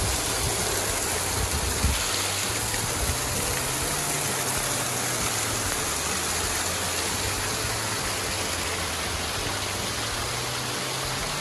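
Small creek waterfall pouring over rock ledges into a pool: a steady rush of falling and splashing water.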